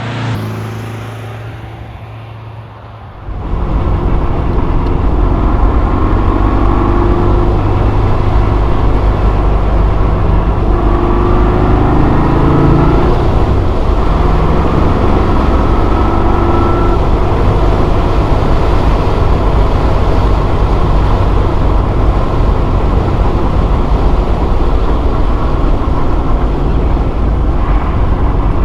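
Porsche 356C's air-cooled flat-four engine and road noise while driving: a quieter hum for the first three seconds, then loud, steady running with slight changes in engine pitch.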